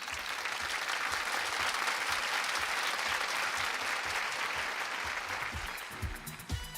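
Crowd applause: steady, dense clapping that thins out and fades near the end.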